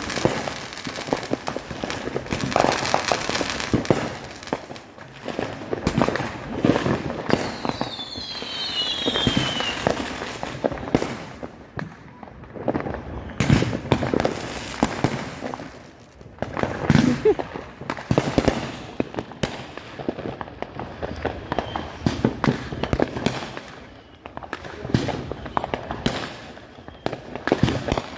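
Fireworks and firecrackers going off in many places at once: a steady run of bangs and crackling pops, some much louder than others, with a falling whistle about eight seconds in.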